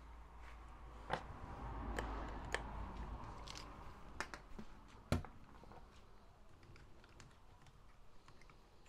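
Faint hand-work noise from small parts and tools being handled: scattered light clicks and some rustling, with one sharper click about five seconds in.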